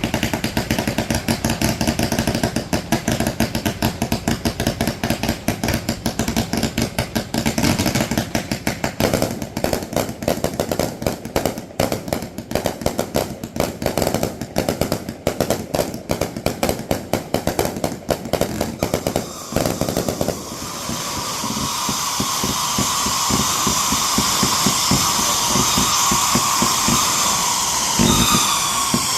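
Fireworks going off in a rapid, continuous volley of sharp reports for about twenty seconds, then a steady high whistling, with falling whistles near the end.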